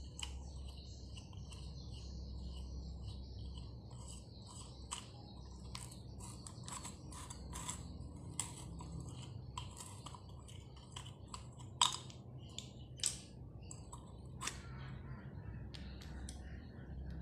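Small metal parts of a spinning fishing reel clicking and tapping as the spool bolt is undone and the reel is taken apart by hand: scattered irregular ticks, with one sharper knock about twelve seconds in.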